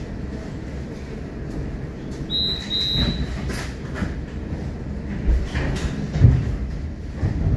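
Moderus Alfa low-floor tram: a steady low rumble, with two short high electronic beeps about two and a half seconds in, then a few heavy thumps, the loudest about two thirds of the way through.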